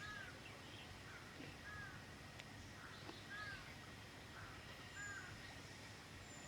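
A bird calling faintly outdoors, the same short arched note repeated four times, about every second and a half.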